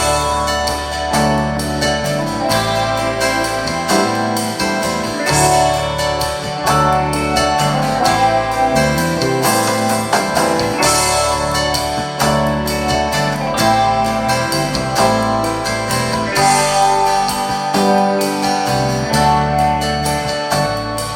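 Recorded music, a bass line under keyboard and guitar chords, played back through a Telefunken TA 350 amplifier and Soviet 10MAS-1M loudspeakers and picked up in the room.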